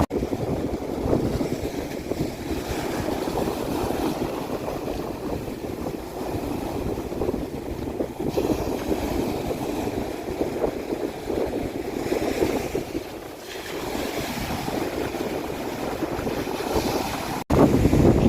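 Sea waves crashing on the shore, a continuous rush of surf with wind noise on the microphone. The surf eases for a moment past the middle, and near the end the sound cuts off abruptly and jumps to a louder stretch of surf.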